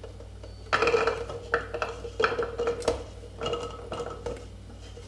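A plastic spatula scraping and knocking inside a stainless steel bowl as cooked chickpeas are tipped out into a blender beaker, each knock setting the bowl ringing. About six or seven uneven scrapes and taps.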